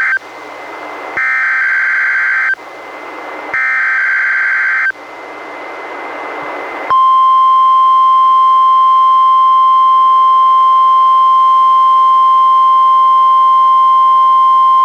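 NOAA Weather Radio Required Weekly Test on a Reecom R-1630 weather radio. First comes the end of one EAS SAME digital header burst, then two more buzzing data bursts about a second and a half each, with radio static swelling between them. About seven seconds in, the steady 1050 Hz warning alarm tone starts and holds.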